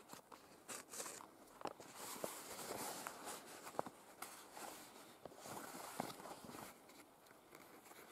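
Hand-stitching a leather pouch: irregular rustling and scraping as the leather is handled and thread is drawn through the stitching holes, with a few sharp little clicks.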